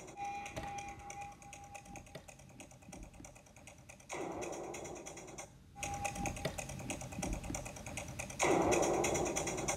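Rapid, irregular clicking like typing on a keyboard. Twice, about four seconds in and near the end, a louder rush of noise joins it.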